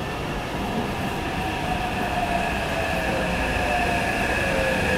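Taipei Metro C381 train pulling into an underground station: a rumble that grows slowly louder, with a whine that slowly falls in pitch as the train slows.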